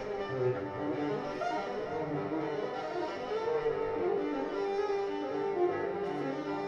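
Solo cello played with the bow, several sustained notes sounding together in a slow, continuous line.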